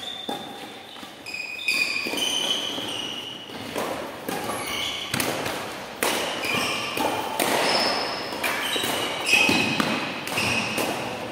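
Badminton rally: sharp pops of rackets striking the shuttlecock, mixed with short high squeaks of court shoes on the floor and footfalls.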